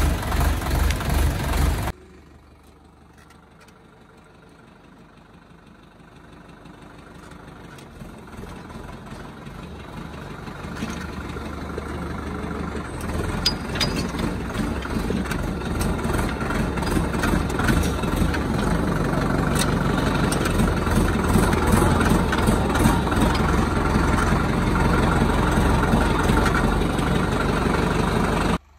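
Indo Farm 3065 tractor's diesel engine running, close and pulsing evenly at first. After a cut about two seconds in it is heard from the driver's seat while a rear blade levels soil, growing steadily louder and then holding, before cutting off suddenly near the end.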